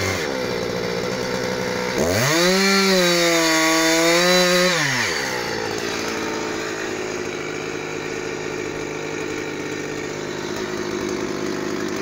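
Husqvarna 359 two-stroke chainsaw dropping off full throttle at the start, revving back up to full speed for about three seconds, then falling to a steady idle for the rest.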